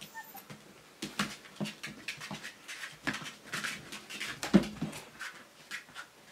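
Siberian husky puppy lapping water from a plastic bowl: quick, irregular wet clicks and splashes, with one louder knock just past the middle.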